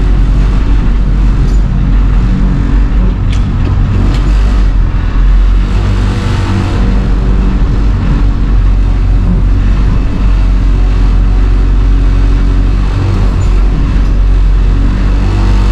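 International 3800 school bus's T444E turbo-diesel V8 running steadily, heard from inside the cab.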